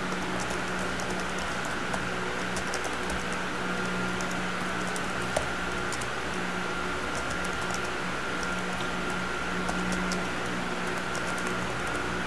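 Steady room hum with a faint steady tone, dotted with scattered faint light clicks.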